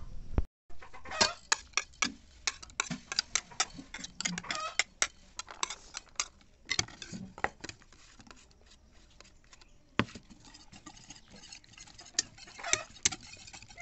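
Irregular clicks and taps of kitchen utensils on a plastic tray and a ceramic bowl as chopped vegetables are tipped into raw eggs. Near the end a wire whisk clinks against the bowl as the eggs are beaten.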